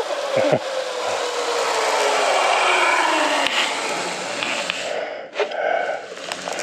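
Zip line trolley rolling along the cable: a steady rushing whir with a whine that slowly falls in pitch as it slows, dying away about five seconds in.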